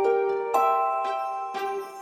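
Gentle instrumental background music of bell-like struck notes, with a fresh chord sounding about half a second in and again near the end, each ringing and fading slowly.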